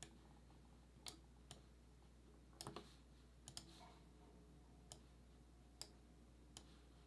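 Faint computer mouse clicks, about ten of them at irregular intervals, some in quick pairs, over a low steady hum.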